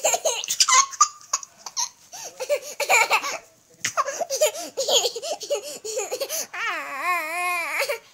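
Toddler laughing hard while being tickled on the belly, in quick breathy bursts. Near the end comes one long, wavering squeal of laughter that cuts off.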